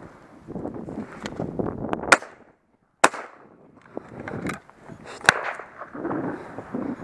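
Two loud shots from a 28-gauge shotgun, about three seconds apart, over footsteps crunching across tilled soil.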